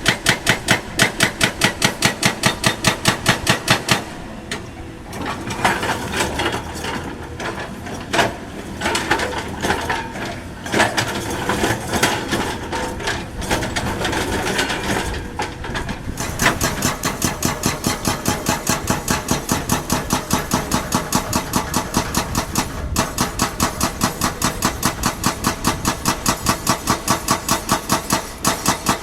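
Heavy construction machinery at work: a fast, even mechanical knocking, about four knocks a second, with an engine running. For about twelve seconds in the middle the knocking gives way to irregular clattering and scraping.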